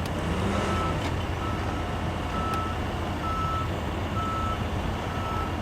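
Backup alarm of a reversing maintenance-of-way truck beeping about once a second, each beep a single steady tone, over the low steady running of a diesel engine.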